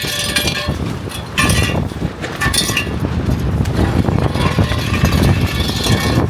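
Strong wind buffeting the microphone in a steady low rumble. Over it come repeated bursts of metallic rattling and scraping, typical of construction-site fencing being shaken or moved.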